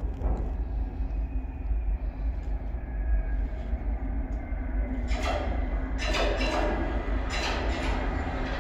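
New York subway train, an R62A 6 local, approaching the station through the tunnel: a steady low rumble, joined from about five seconds in by repeated bursts of high wheel screech and rail clatter as it nears.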